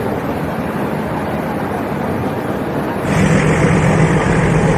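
Nilgiri Mountain Railway toy train running, heard from aboard as a steady rumble of wheels and coach. About three seconds in it turns abruptly louder and a steady low hum comes in.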